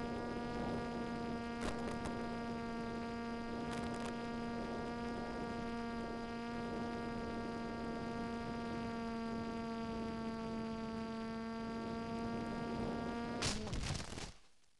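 Steady, unchanging hum of an FPV flying wing's electric motor drive with a string of overtones, heard through the onboard audio feed and dotted with a few brief clicks of radio static. Near the end a burst of crackling comes as the plane hits the grass, and the hum cuts out as the motor stops.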